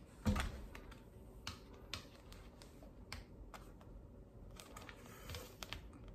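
Hands fiddling with white plastic packaging close to the microphone: a soft thump just after the start, then scattered faint clicks and taps.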